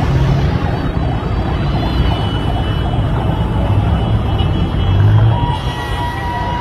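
Loud, steady rumble of floodwater rushing down a storm channel, with a steady high tone joining a little before the end.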